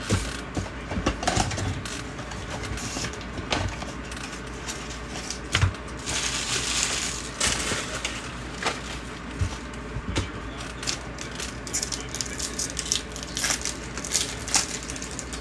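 Sealed baseball card packs and their box being handled and opened: wrappers crinkling and tearing, with scattered clicks and taps, and a longer stretch of crinkling a little past the middle.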